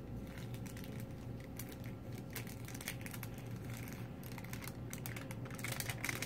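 Paper inner wrapper of a sterile glove pack being unfolded and handled on a tabletop: crisp paper rustling and crinkling in irregular small clicks.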